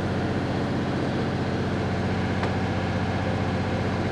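Vehicle engine running at a steady speed, a constant low hum with no change in pitch.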